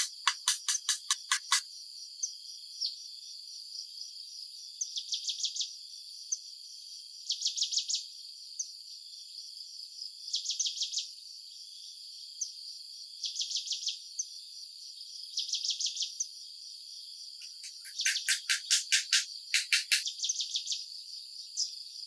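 Chorus of chirping insects: a steady high buzz with short trains of rapid chirps every couple of seconds. Louder, faster chirp trains come at the start and again near the end.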